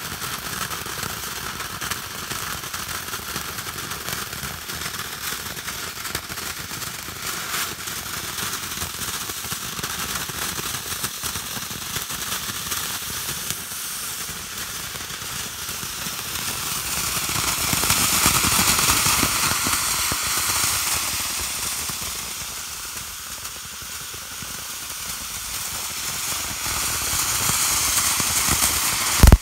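Firework fountain (Boomin' Bulldog "Blue Fish") spraying sparks with a continuous crackling hiss. It swells loudest about two-thirds of the way through, eases off briefly, then builds again near the end.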